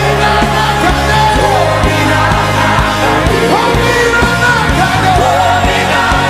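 Live worship music: a band playing steady sustained chords under gliding sung melody lines, with voices singing along.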